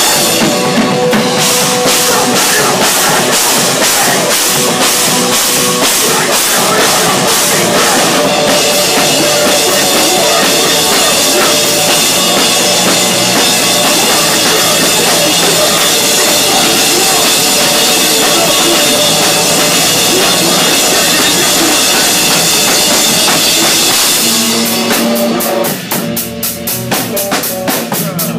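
Hardcore band playing live and loud: electric guitar and a drum kit pounding out fast, dense rock. About 24 seconds in the full band thins out, leaving mostly rapid, even drum strokes.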